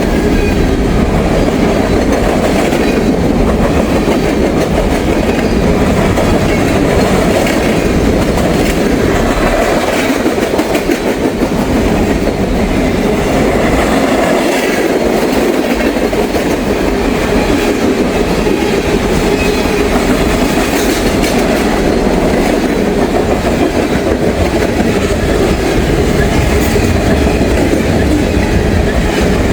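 Norfolk Southern freight train rolling past, a loud, steady rumble of its cars' steel wheels on the rails.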